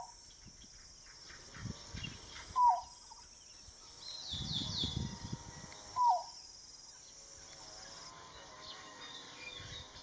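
Green-billed malkoha singing: single short falling notes spaced about three and a half seconds apart, one right at the start, then near three and six seconds in. It is a sparse, simple song, not really much of a song.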